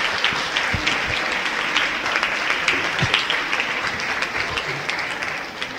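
Audience applauding, the clapping fading near the end.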